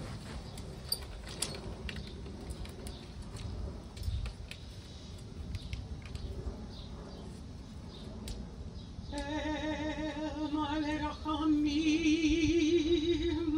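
Mourners getting to their feet: shuffling and creaking with scattered clicks and knocks. About nine seconds in, a solo voice begins singing long held notes with wide vibrato, growing louder near the end.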